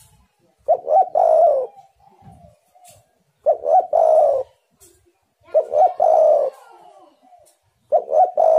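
Spotted dove cooing. Its phrase repeats four times, about every two seconds, each phrase a short coo and then a longer, louder one. Fainter coos sound in the gaps.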